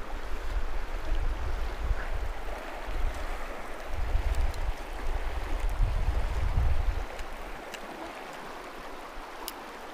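River current running steadily. A low, uneven rumble sits under it for about the first seven seconds, then fades, leaving only the water.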